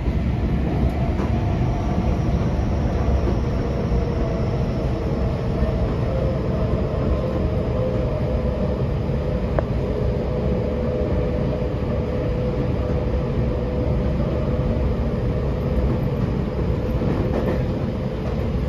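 Tokyo Metro 10000 series subway train running at speed, heard from inside the passenger car: a steady low rumble of wheels on rail with faint steady whining tones, and one sharp click about halfway through.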